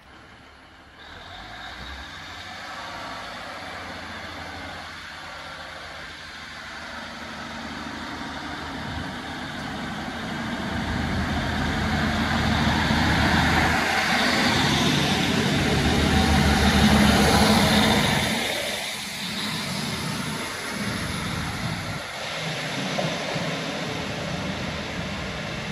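Class 150 Sprinter diesel multiple unit's underfloor Cummins diesel engines running as the train comes along the platform. The sound grows steadily louder to a peak about 17 s in, then eases. At about 22 s it gives way to a second, similar diesel unit.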